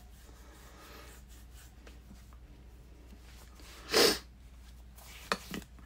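One loud, short burst of a person's breath noise about four seconds in, followed by two quick clicks near the end.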